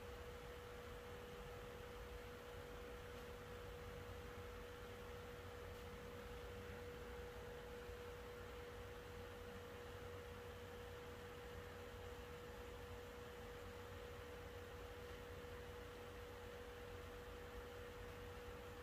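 Quiet room tone with a faint, steady hum held at one pitch throughout, over a low hiss.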